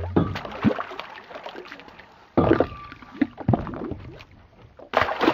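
A fish clamped on the bait thrashing at the water's surface beside the boat, splashing in irregular bursts, with a loud splash about two and a half seconds in and another near the end.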